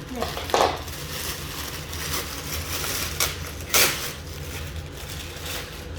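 Plastic packaging crinkling and rustling as it is handled, with two louder crackles, about half a second in and just before four seconds in.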